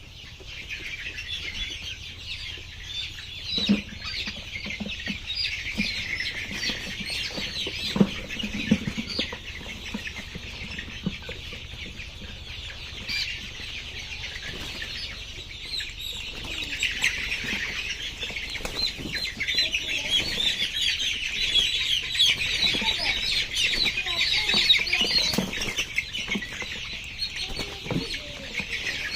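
A flock of layer hens clucking and calling continuously, a dense chatter of many birds at once, with a few short knocks now and then.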